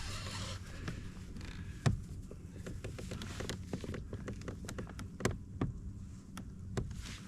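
A boat's motor idling as a low steady hum, with scattered light taps and clicks over it and two sharper knocks, about two seconds in and just past five seconds.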